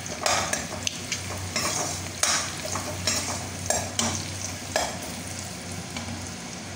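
Chopped onion, ginger and garlic sizzling as they fry in hot oil in a metal kadai, stirred with a metal ladle that scrapes and clicks against the pan about once a second.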